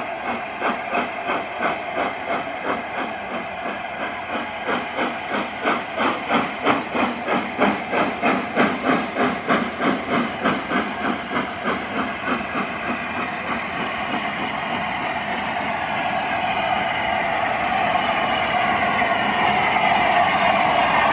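The steam locomotive Union of South Africa, an LNER A4 Pacific, chuffs its exhaust in regular beats, two to three a second, as it runs slowly in. Past the middle the beats die away, and a steady hiss of steam grows louder as the engine draws close.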